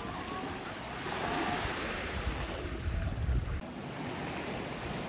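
Small waves washing on a sandy shore, with wind buffeting the microphone. The wind rumble stops abruptly about three and a half seconds in, leaving the softer wash of the water.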